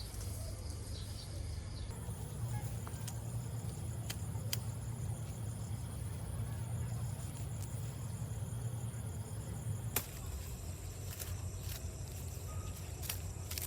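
Outdoor garden ambience: a steady low rumble, with faint high steady insect-like tones and a few sharp clicks, one near the middle the loudest.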